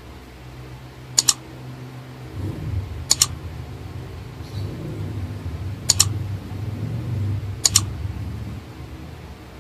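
Four double mouse clicks, about two seconds apart, from a like-and-subscribe button animation, over a low, uneven rumble through the middle.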